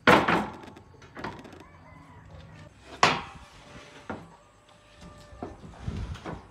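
A series of sharp knocks and clanks from tools and parts being handled during repair work, six in all, the loudest right at the start and another about three seconds in.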